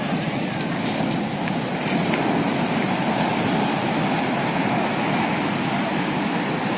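Ocean surf breaking and washing in: a steady, unbroken rush of heavy waves.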